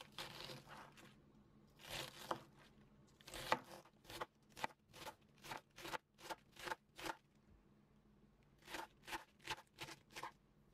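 Chef's knife slicing through a quarter head of lettuce on a cutting board, each cut a crisp crunch. A few slow cuts come first, then a quick run of about two or three cuts a second, a short pause, and another quick run near the end.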